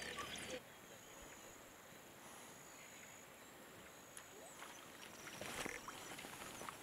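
An African wild dog wading through shallow river water: soft splashing footsteps, more distinct in the second half. High twittering calls cut off about half a second in.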